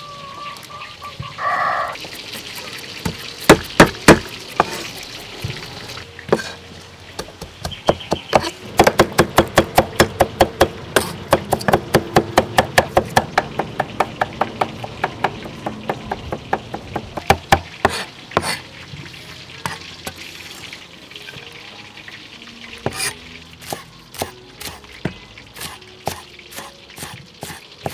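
Cleaver chopping on a wooden cutting board, chopping garlic and spring onions, in bursts of rapid knocks several a second with pauses between them.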